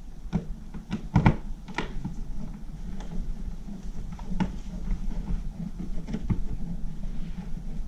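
Scattered small clicks and knocks of a wall light switch being unscrewed and pulled out of its electrical box, over a steady low hum.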